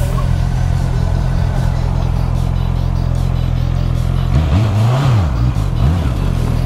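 Motorcycle engine running steadily at road speed, with wind noise over it. About two-thirds of the way through, the revs rise and fall back.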